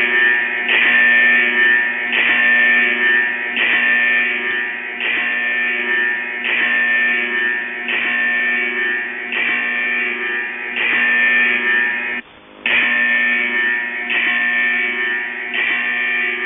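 Shortwave receiver audio of a looped musical channel marker on 6911 kHz, from the transmitter network the video ties to the Russian military. A short guitar-like phrase repeats about every second and a half in narrow, radio-band sound, and the signal cuts out briefly about twelve seconds in.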